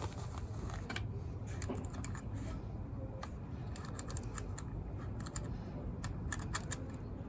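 Scattered light clicks and taps of small metal parts and hand tools being handled while the headlight is fitted to an e-bike's front end.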